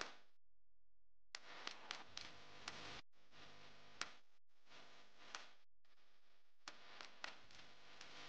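Near silence: faint steady room hiss, cut out briefly a few times, with about a dozen small sharp clicks scattered through it.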